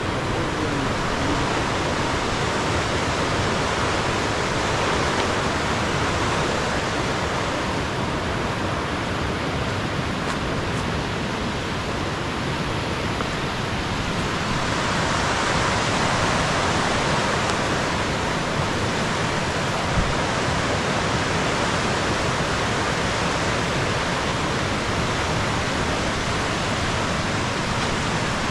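Steady rushing of a mountain stream, an even hiss of running water that swells slightly about halfway through.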